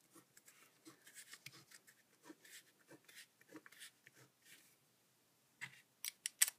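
Pen drawing a row of short dashes on paper to mark a valley fold, a quick series of faint scratches that stops about four and a half seconds in. A few sharper clicks or taps follow near the end.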